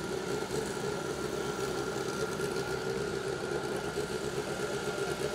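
Drag-racing motorcycle's engine idling steadily while staged at the start line before launch.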